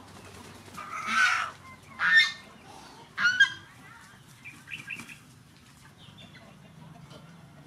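Chickens calling: three loud, short squawking calls about a second apart near the start, then a few softer clucks midway.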